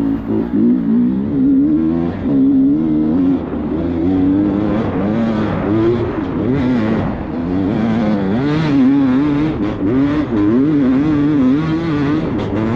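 Dirt bike engine heard from on board while riding, its pitch rising and falling constantly as the throttle is opened and closed over a rough trail.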